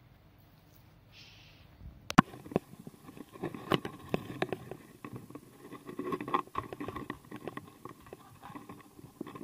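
A wooden door being opened: a sharp click about two seconds in, then a run of soft, irregular knocks and rustling as the door swings and someone moves through it with the camera in hand.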